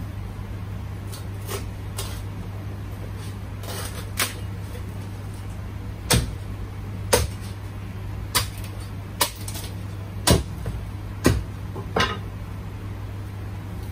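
Meat cleaver chopping marinated goose on a chopping block: a few light knocks, then about seven heavy chops roughly a second apart from about six seconds in, over a steady low hum.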